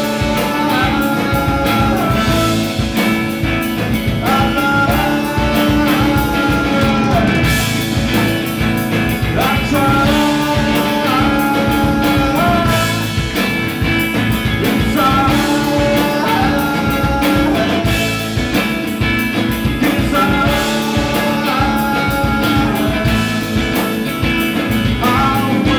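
Live rock band playing: a male singer sings phrases that come back every few seconds, over electric guitars and a busy, steady drum beat.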